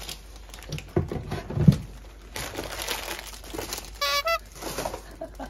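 Plastic food packaging and bags crinkling as groceries are handled and put into a refrigerator, with a couple of knocks about a second in. There is a short high-pitched note about four seconds in.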